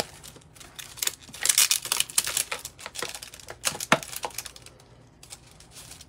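Paper and card-making supplies being handled on a desk: irregular rustling with light clicks and taps, busiest about one and a half to two and a half seconds in, and a sharper tap about four seconds in.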